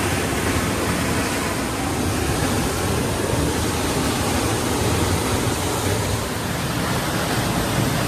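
Giessbach Falls pouring down at close range from the path behind the falling water: a steady, loud rush of water noise.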